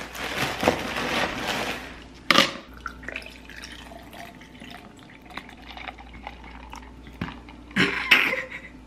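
Pineapple juice poured from a carton over ice into a plastic blender cup, splashing as it fills, with a sharp click about two and a half seconds in.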